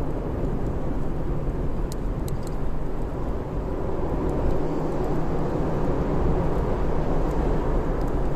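Wood fire burning: a steady low rushing rumble with a few faint, sharp crackles of the burning wood, a cluster of them about two seconds in and a couple more later.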